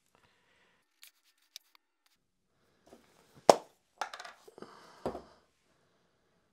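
Small plastic clicks of glue bottle and PLA parts being handled, then a sharp clack about halfway through as the cap comes off an aerosol can of glue accelerator, followed by short hissing spray bursts and a light knock.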